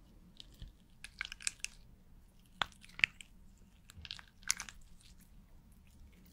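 Pen tip drawing short strokes on a clear sheet: clusters of crisp scratchy scrapes and taps, with the sharpest couple of clicks about three seconds in.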